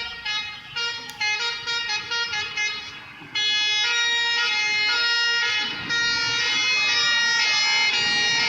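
Bus telolet horn playing a tune: a quick run of short tooting notes, then from about three seconds in longer held chords that change pitch every second or so.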